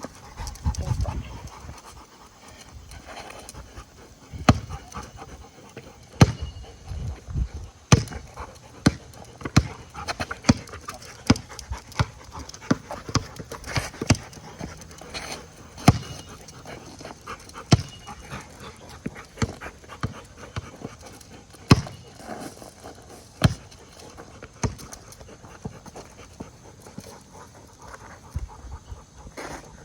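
Dog panting hard during play, with many sharp knocks scattered through it, about one a second.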